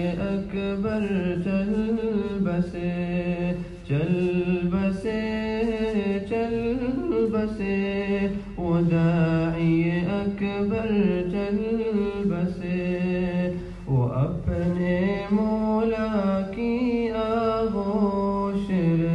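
A nasheed sung by a male voice, slow and ornamented, with long held notes that bend and glide in pitch.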